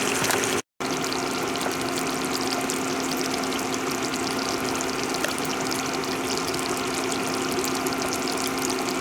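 Zucchini squash simmering and crackling in a deep cast iron skillet full of oil, butter and the squash's own liquid, with a steady low hum underneath.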